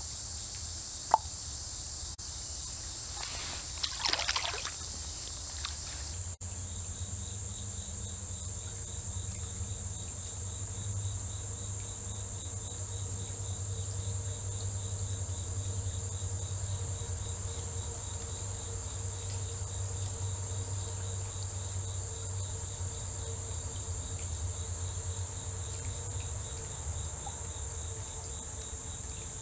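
A steady, high-pitched insect chorus from the creekside woods, with a sharp click about a second in and a short, louder noise around four seconds in.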